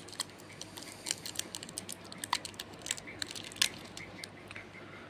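Small foil-lined Center Fresh chewing-gum wrapper crinkling in the fingers as it is peeled open, with scattered sharp crackles, the loudest about three and a half seconds in.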